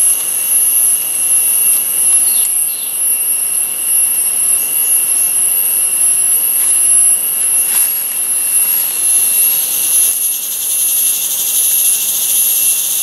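Loud, steady, high-pitched drone of a tropical forest insect chorus, holding several constant shrill tones without a break.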